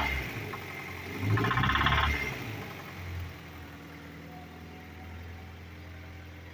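Honda CR-V's B20Z2 2.0-litre four-cylinder engine revved briefly twice, each rise about a second long with a fast rattling knock, then settling back to a steady idle. The knock is new and shows under revs, while at idle the engine seems fine.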